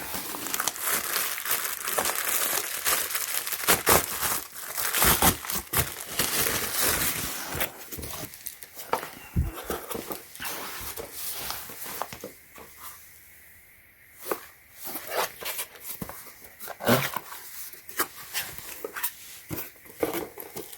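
Product packaging being opened by hand: crinkling and tearing, busiest for the first several seconds, then scattered rustles and taps as the contents are taken out.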